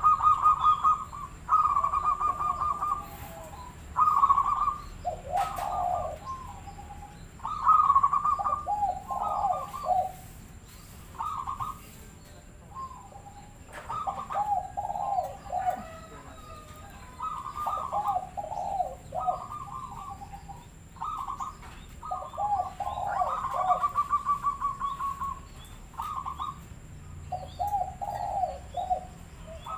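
Local zebra dove (perkutut) cooing over and over, one phrase every second or two with short pauses. Each phrase is a quick stuttering run of clipped higher notes followed by lower, rolling coos. This is the kind of perkutut song used as a 'pancingan' lure to set other perkututs singing.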